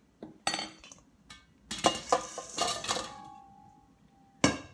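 Metal spoon, stainless steel bowl and metal crisper basket clinking and clattering as raw, oiled potato wedges are spooned and tipped from the bowl into the basket, the bowl left ringing briefly; one sharp knock near the end.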